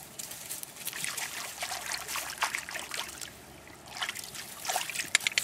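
Shallow water trickling, with irregular small splashes and rustles as Wirehaired Pointing Griffon puppies step about at the muddy edge of a stream; the splashes come thicker and louder near the end.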